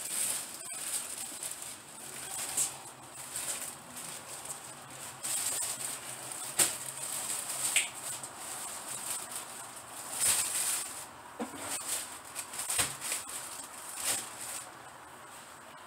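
Irregular rustling with scattered light knocks and clicks, from shopping bags and packs of goods being handled and carried in from the car.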